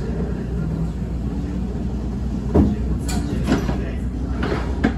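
Interior running sound of an N700 series Shinkansen car with Hitachi inverter equipment moving at low speed: a steady low rumble with faint steady motor tones, and a few sharp clacks from about halfway in.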